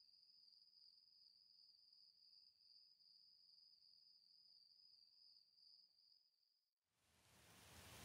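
Faint, steady, high-pitched insect trill that stops abruptly about seven seconds in, followed by a hiss of noise that fades in and grows louder.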